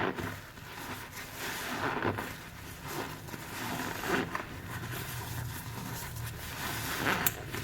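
Wet soapy sponge being squeezed by hand, with a squelch about once a second and a sharper one near the end.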